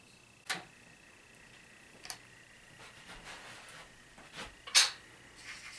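A few light knocks and rustles as a hardcover book is handled on a wooden coffee table, the sharpest knock coming just before the end, over a faint steady high tone.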